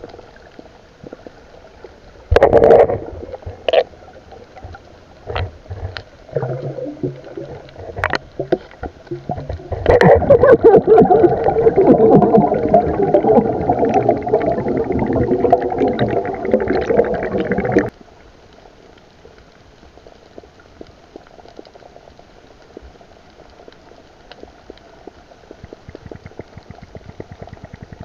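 Underwater bubbling and gurgling of a diver's exhaled air bubbles at the camera, heard through its housing. Knocks and a short loud burst come first, then a long loud stretch of dense bubbling in the middle that cuts off suddenly, leaving quieter underwater noise.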